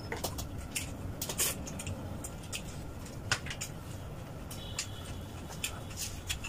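People eating pork ribs by hand: irregular wet chewing and lip-smacking clicks, with scattered soft taps of fingers and food on the plates.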